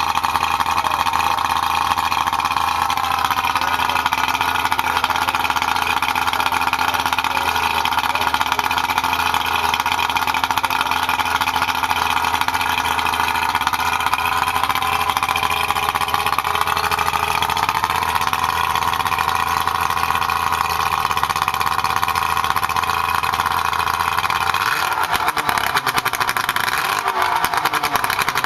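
Johnson 70 hp two-stroke outboard motor running steadily out of the water on flushing muffs fed by a garden hose, its note shifting slightly now and then and changing a few seconds before the end.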